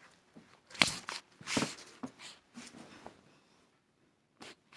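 Handling noise of a handheld phone being moved about: a few scattered soft knocks and rustles, with quiet between them.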